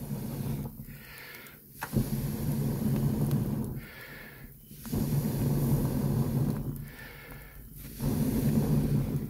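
A man blowing hard on the embers of a wood fire in long breaths, about three blows of nearly two seconds each, with a quick in-breath between them.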